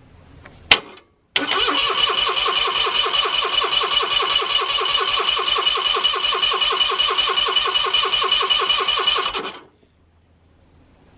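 A sharp click, then a 16.5 hp Onan CCKA air-cooled opposed-twin engine being cranked over by its electric starter for about eight seconds, with even compression pulses about five times a second under a steady whine. It does not catch, and the cranking cuts off suddenly.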